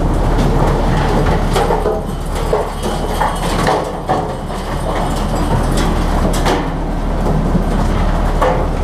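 Fishing boat's Yanmar diesel engine running as a steady low drone, with irregular knocks and clatters throughout.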